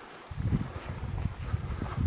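Wind buffeting the microphone in uneven gusts, with a lull at the start and a swell again about half a second in.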